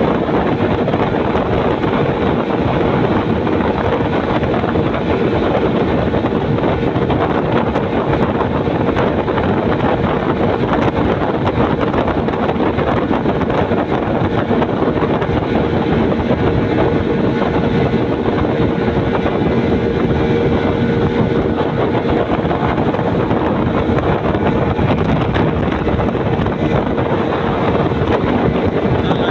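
Speedboat running steadily at speed: a constant engine hum under a loud, even rush of wind and water.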